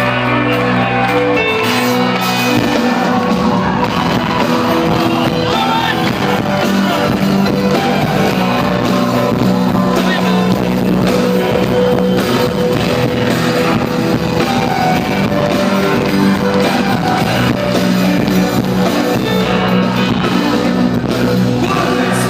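Rock song with guitar and singing.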